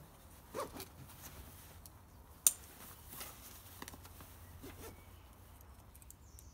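Side-release buckle clips on a Berghaus Trailhead 65 rucksack being fastened: one sharp click about two and a half seconds in, with fainter clicks and rustling of straps and fabric around it.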